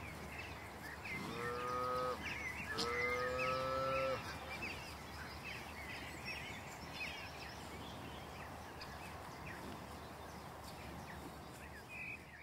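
A cow mooing twice, two long calls back to back, each lasting about a second.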